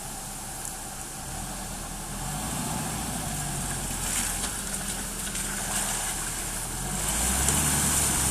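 Off-road vehicle engine running at a fairly steady low speed, getting louder about seven seconds in, with a steady hiss over it.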